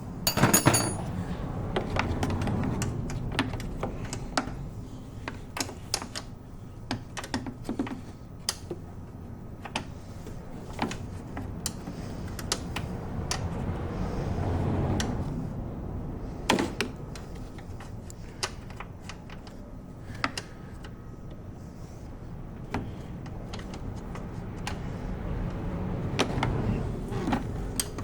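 Irregular small clicks and knocks of parts and hand tools being handled while components are taken off under a car's hood.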